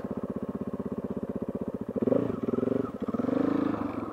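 KTM 450 EXC's single-cylinder four-stroke engine running at low speed with a fast, even putting beat, then opened up twice, about two and three seconds in, as the bike accelerates before settling back to the steady beat.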